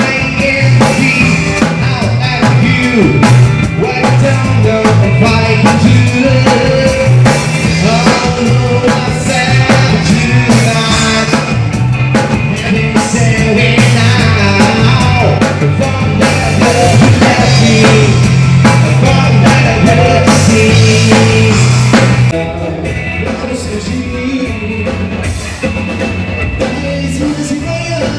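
Live rock band playing, with a drum kit, instruments and a singer. The music drops in level about three-quarters of the way through.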